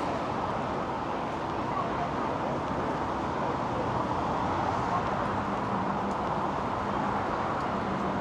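Busy city street ambience: a steady hum of traffic with indistinct voices of passers-by.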